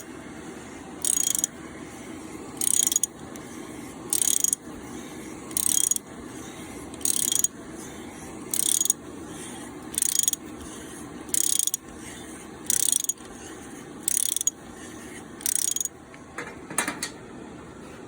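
Ratchet wrench worked in slow, even strokes, its pawl clicking briefly on each return swing about every second and a half, as a cutting tool is turned by hand into a head bolt hole in a Toyota 3.4-litre V6 block for a thread insert repair. A couple of shorter clicks come near the end.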